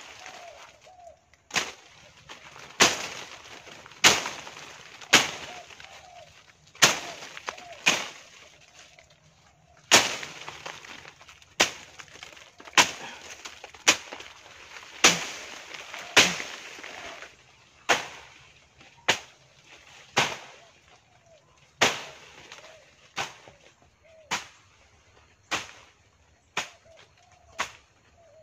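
A machete-type blade chopping through brush and stems with repeated sharp strokes, roughly one a second. Each stroke is followed by a brief rustle of leaves and twigs.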